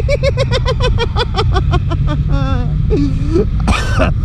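A man's rapid high-pitched giggle, a quick string of 'hee-hee' pulses that slow and fade over the first two seconds, then a few short voiced sounds and a brief loud exclamation near the end. Under it runs the steady low drone of a motorcycle engine.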